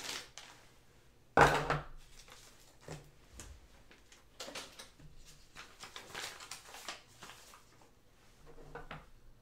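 A sealed plastic packaging bag being torn open and its contents unpacked. One loud, sudden noise about a second and a half in, then scattered soft rustles and small clicks of plastic and paper.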